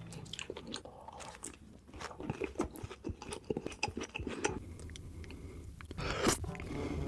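Close-miked mukbang eating: crunchy bites and chewing, a rapid string of short clicks, with a louder bite about six seconds in.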